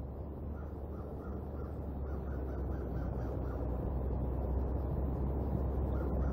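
Crows cawing in a quick series of short repeated calls, stopping around the middle and starting again near the end, over a steady low rumble and hiss from rain and wind on the nest-cam microphone.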